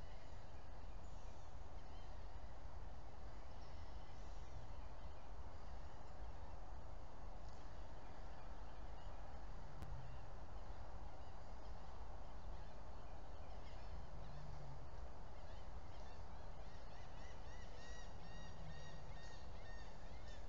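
Steady outdoor background noise with birds calling. A quick run of repeated high chirps comes in near the end, along with a few short, low calls.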